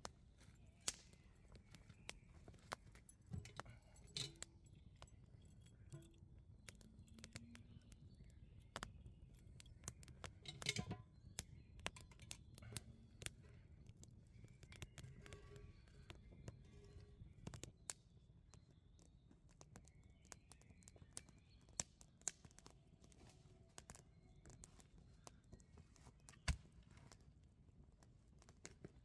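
Quiet outdoor handling sounds: metal chain links clinking against the cooking tripod, with scattered sharp knocks of wood and metal and one loud knock near the end. Faint bird chirps in the background.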